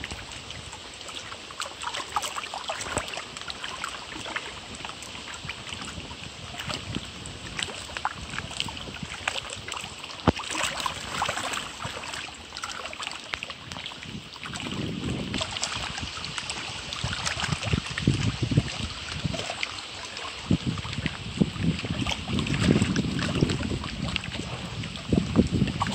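Water splashing and lapping against the rocky shore as a hooked fish thrashes at the water's edge, with many small irregular splashes. Wind gusts buffet the microphone in low rumbles, heavier in the second half.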